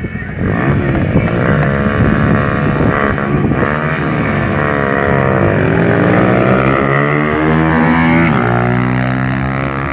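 Two motorcycle engines revving hard at a drag-race start line, their pitch climbing and dropping again and again. Near the end they pull away under full throttle.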